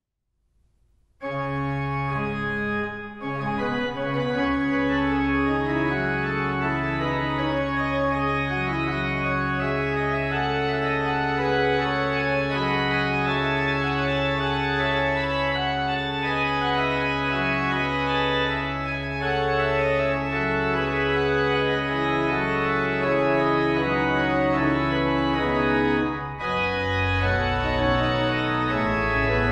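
Church organ starting suddenly about a second in and playing the postlude that closes the service: full chords over long held bass notes, with brief breaks about three seconds in and near the end.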